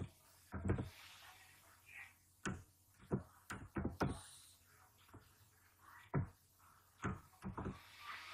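Computer keyboard being typed on slowly: separate knocking keystrokes a fraction of a second to a second or more apart, with gaps between them.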